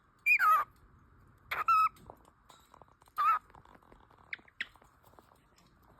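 Cockatiel calling: three loud chirps about a second and a half apart, the first sliding down in pitch, followed by two short, quieter chirps just past the four-second mark.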